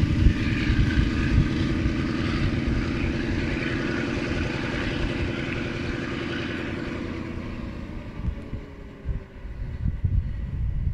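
Alsthom diesel-electric locomotive pulling away under power, its engine note steady and heavy, fading out as the train draws away.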